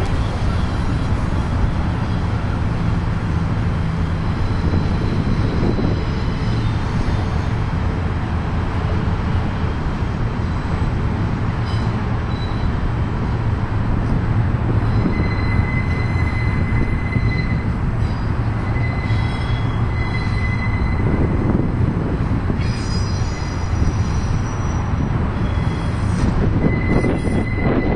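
Union Pacific freight train of container cars rolling past close by, a steady loud rumble and clatter of wheels on rail. A thin high wheel squeal comes and goes in the second half.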